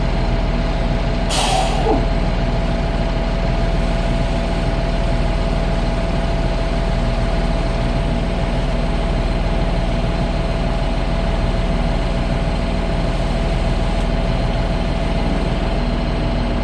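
Steady running of a fire-fighting pump engine, with the hose's water jet spraying, and a short sharp hiss about a second and a half in.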